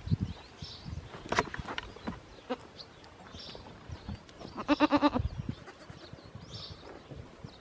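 A farm animal gives a short, quavering, bleat-like call about halfway through. A sharp rattle comes a little over a second in, and faint small-bird chirps sound now and then.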